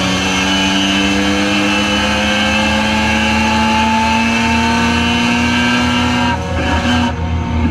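Spec RX-7 race car's rotary engine under power, revs climbing slowly and steadily in one gear for about six seconds before the steady pull breaks off near the end.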